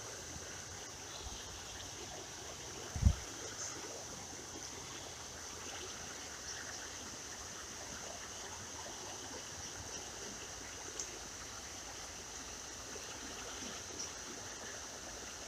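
Steady trickle of a small creek running over a shallow, stony riffle. One dull thump about three seconds in.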